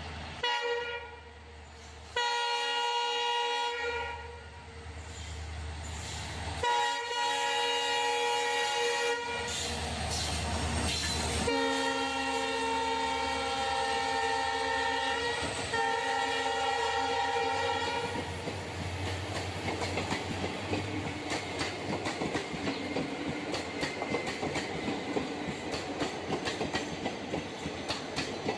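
Train horn sounding five separate blasts, the fourth the longest at about 4 s. From about 18 s in, the train's wheels clatter rapidly over the rail joints.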